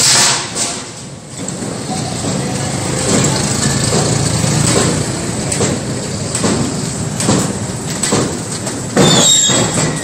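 Hand cart loaded with stacked steel sheets being pushed over rough ground: the wheels rolling and the sheets rattling and clanking, with brief high squeals near the end.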